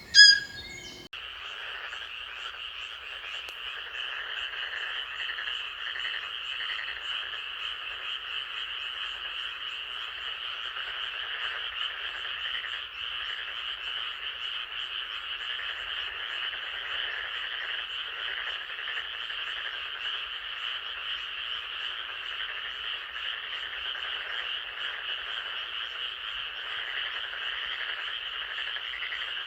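Chorus of many frogs calling together, a dense steady sound that begins about a second in and carries on unbroken. It is preceded by a brief, loud pitched call at the very start.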